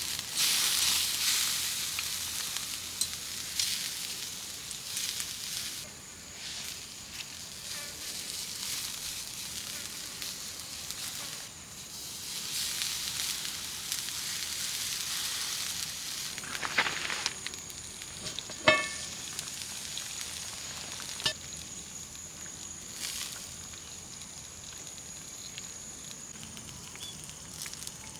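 Food sizzling over a campfire, a hissy crackle with scattered small pops and clicks. There is one sharp tap about two-thirds of the way through, and a faint steady high tone joins in the second half.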